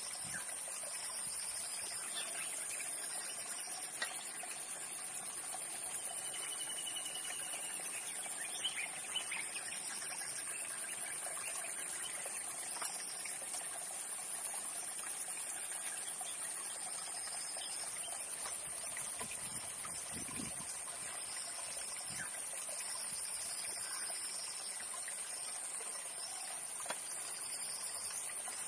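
Outdoor nature ambience: a steady high-pitched insect drone over an even hiss, with a few short bird calls scattered through.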